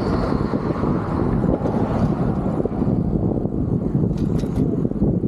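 Wind buffeting the handlebar-mounted camera's microphone while riding a road bike, a steady low rumble. A few faint clicks come about four seconds in.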